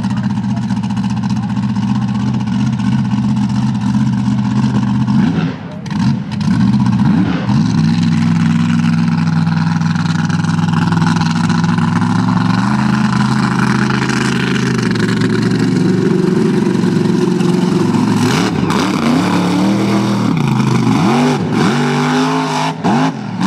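Supercharged big-block Chevy V8 of a mud-bog mega truck running steadily, with a brief drop in sound about six seconds in. It then climbs in pitch in steps, and in the last few seconds revs hard in quick rises and falls as the truck launches into the mud.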